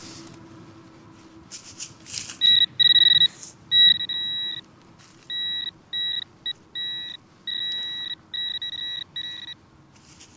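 Handheld metal-detecting pinpointer beeping as it is probed through loosened soil, in short and longer high beeps at one steady pitch, the signal that a metal target is close in the hole. A few brief scuffs of soil are heard about two seconds in.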